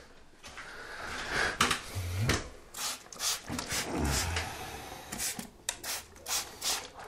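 Hand trigger spray bottle squirting water in a series of short sprays onto fresh polyurethane foam around a wooden window frame, wetting the foam so that it cures, with some rubbing and handling noise.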